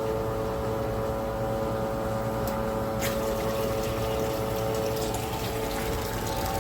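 Water flowing steadily through plumbing with a constant pump-like hum.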